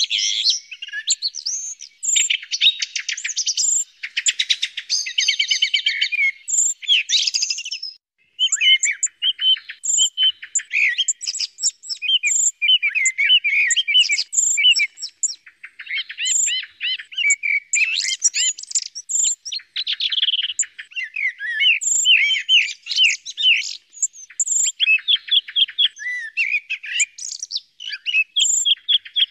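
Common blackbird and song thrush song mixed together as a bird-caller lure recording: a dense, nearly unbroken run of varied whistled phrases and rapidly repeated notes, with only a brief pause about eight seconds in.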